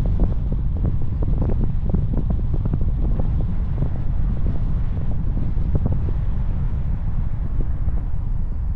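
Wind buffeting the microphone of a moving car, over a steady low rumble of the drive.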